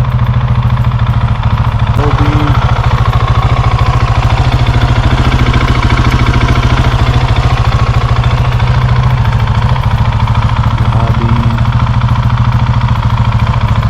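Husqvarna 701 Enduro's single-cylinder engine idling steadily, with a fast, even pulse.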